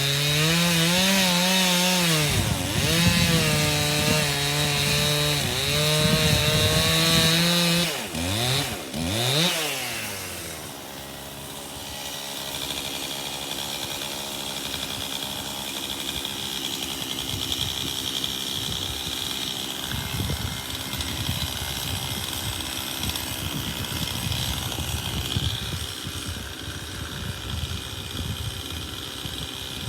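Two-stroke chainsaw cutting ash wood at high revs, the engine note dipping and recovering under load. About eight seconds in it revs up and down and drops back, then runs on at a lower, steadier level.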